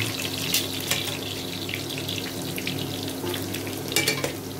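Pork belly cubes frying in hot oil in a stainless steel pot: a steady sizzle with scattered crackles and a few sharp clicks about four seconds in, over a steady low hum.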